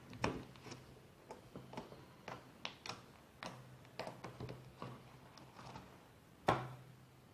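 Homemade slime being stretched into a bubble, giving faint scattered clicks and little sticky pops, with one louder snap about six and a half seconds in.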